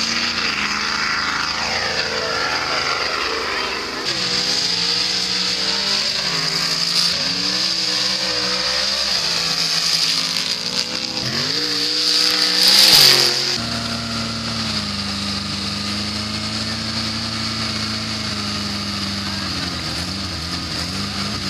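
Off-road 4x4 and buggy engines revving up and down, with a loud rising-and-falling rush about two-thirds through. After that an engine runs at a steadier, lower note.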